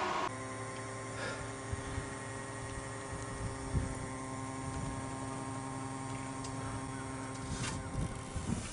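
A steady hum made of several even tones, which stops about three-quarters of the way through, followed by a few light knocks.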